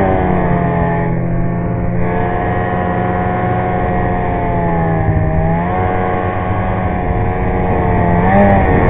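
Polaris snowmobile engine running under way, heard from the rider's seat. Its pitch eases off just after the start, climbs again a little past halfway, and dips then rises once more near the end as the throttle changes.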